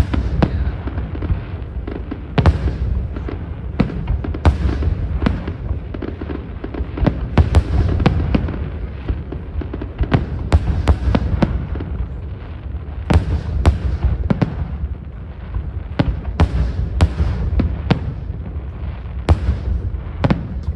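Fireworks exploding in a continuous barrage: many sharp bangs at irregular intervals, several a second at times, over a steady low rumble of booms echoing.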